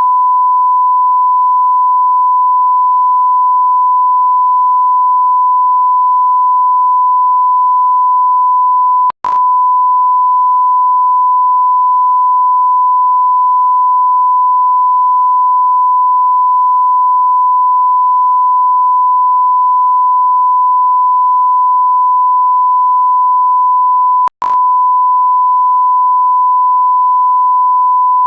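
Continuous electronic beep, one steady pure tone at a single pitch, like a censor bleep or test tone. It breaks off twice for a split second with a click, about nine seconds in and again near the end.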